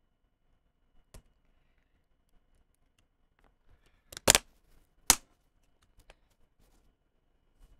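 A few sharp, hard clicks and taps from tools and small phone parts being handled during a smartphone repair. The loudest come as a quick cluster about four seconds in and a single click about a second later.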